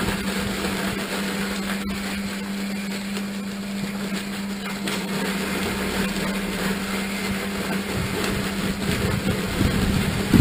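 A machine's motor running steadily, a constant hum with a rough, dense noise over it.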